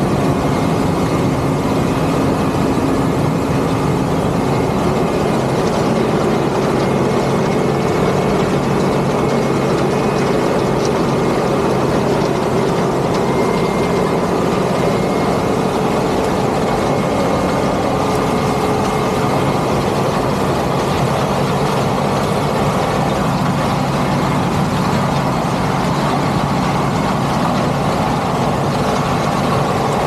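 Claas Lexion 8800 combine harvester running steadily while harvesting corn, heard from beside its rubber track: a loud, even machine din with no change.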